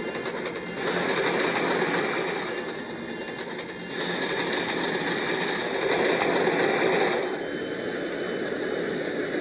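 Freight train locomotive running, with the rumble and rattle of its wheels rolling along the track, as film sound effects spliced together in several short segments that change about a second in, again midway and again near the end.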